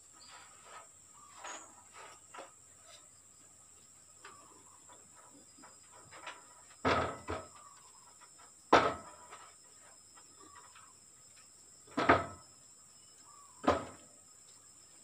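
Bricks set down one at a time on a wooden plank across the top of a brick wall: four sharp knocks a couple of seconds apart in the second half, with a few fainter clicks before them.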